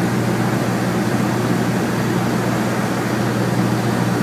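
Cessna 172's piston engine and propeller running steadily on approach to land, heard inside the cabin as a constant low hum over a wash of air noise.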